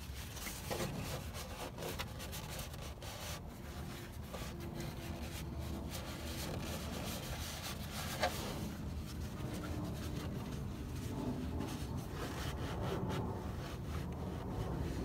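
Cloth shop towel rubbing and scraping against a plastic oil funnel and engine cover while motor oil pours from a jug into the funnel, with a single sharp click a little past halfway.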